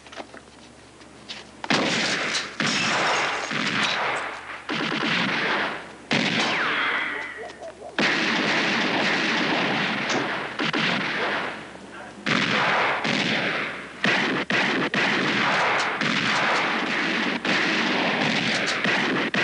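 Staged movie gunfire: many shots in rapid, overlapping volleys, starting about two seconds in, with a few short lulls.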